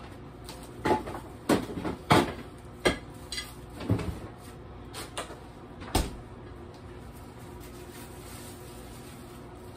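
A kitchen door being opened and shut while a dish is handled: a run of sharp knocks and clunks over the first six seconds, the last and loudest one about six seconds in, followed by low steady room noise.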